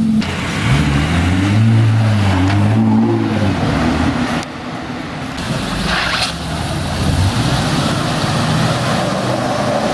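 Ferrari Testarossa's flat-12 pulling away, its revs rising and falling a few times for about three seconds. Then quieter car engines and street traffic, with a brief sharp hiss about six seconds in.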